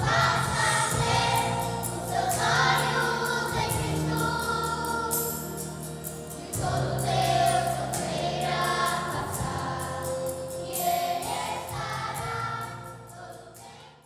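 Choral music: a choir singing with a steady low accompaniment, fading out near the end.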